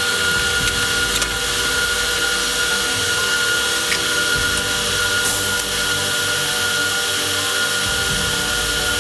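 Welder running a bead around a stud tacked onto a rocker bolt: a steady crackling hiss without a break, over a thin steady whine.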